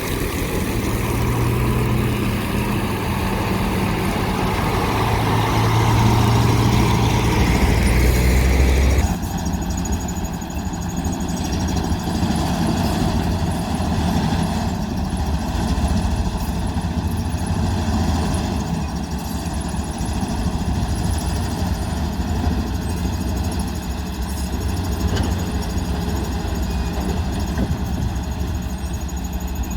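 Diesel engine of heavy road-construction machinery running. It is louder, with a deep hum, for about the first nine seconds, then changes abruptly to a steadier, quieter running sound.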